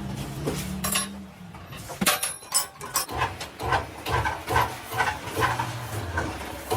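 A low steady hum that stops after about a second, then metallic clinks and a run of regular knocks, about two a second.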